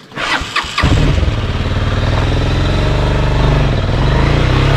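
Motorcycle engine starting less than a second in, after a few short clicks, then running steadily as the bike moves off.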